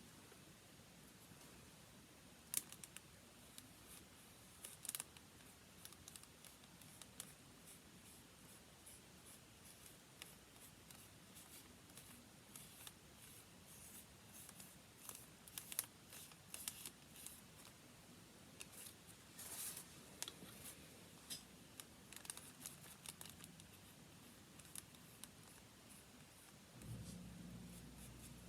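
Faint paper handling while making watercolour swatches: scattered light clicks, taps and short rustles. A low hum comes in near the end.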